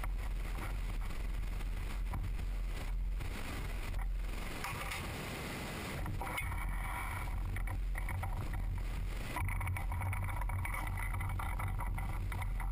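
Steady low background hum, with a few faint knocks and clicks of small metal parts being handled and fitted on a mini-lathe's cross-slide.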